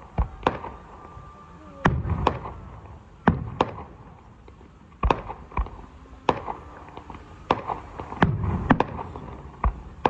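Aerial fireworks shells bursting, a dozen or so sharp bangs at irregular intervals, some in quick pairs, with a short low rumble after the bigger ones.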